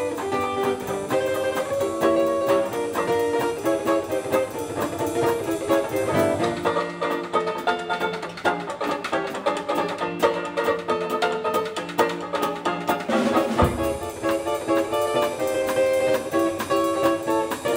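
Instrumental background music with many short pitched notes; a low note is held for several seconds in the middle.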